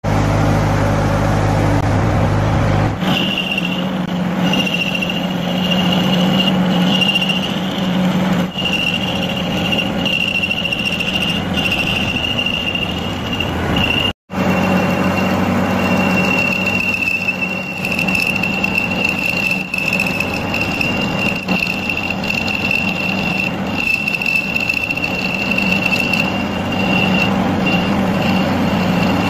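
Metal lathe turning a steel shaft that has been built up with weld beads: the cutting tool gives a steady high-pitched squeal over the machine's lower hum. A different low hum fills the first three seconds.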